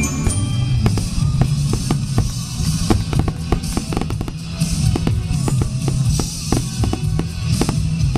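Music with a drum kit and a heavy bass line, with fireworks bursting over it in many sharp, irregularly spaced cracks.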